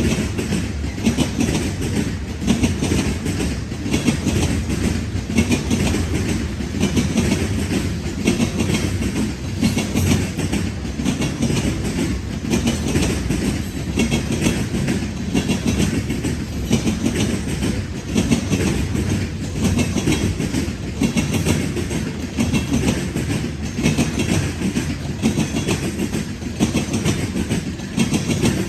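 CSX freight train cars rolling past, wheels clicking steadily over the rail joints above a continuous rumble.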